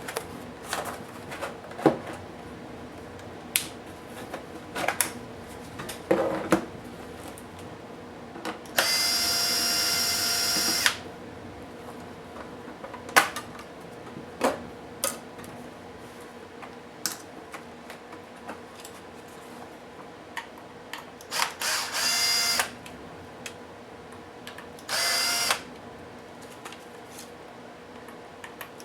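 Electric screwdriver whirring in three runs, the longest about two seconds, as screws are driven out of a laptop case. Sharp clicks and taps of screws and plastic parts come between the runs.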